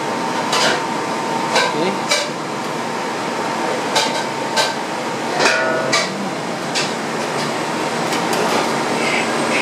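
About eight sharp clicks and taps of a plastic digital thermostat housing knocking against a sheet-metal panel as it is set and lined up, over a steady background machinery hum.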